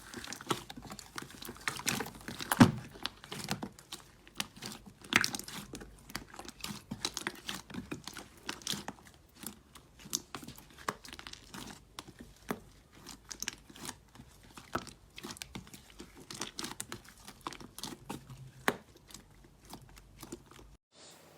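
Slime being squished and pressed by hand, giving a stream of irregular crackles and clicks with louder snaps now and then. The sound cuts off abruptly near the end.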